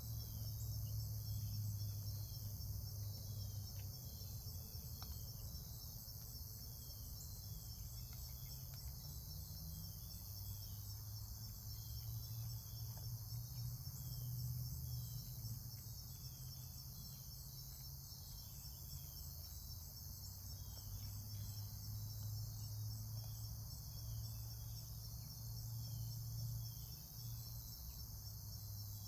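Steady insect chorus, crickets trilling in fast, even pulses, over a low steady hum.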